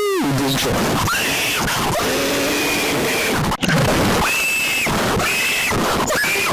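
Harsh, distorted emergency-alert (EAS-style) alarm audio: a loud hiss with tones that swoop up and down and hold briefly at a high pitch, cutting out for an instant about three and a half seconds in.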